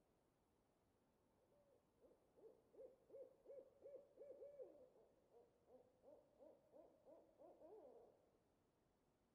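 Owl hooting in the distance: a long run of short, quick hoots, about three a second, starting about a second and a half in and stopping about eight seconds in.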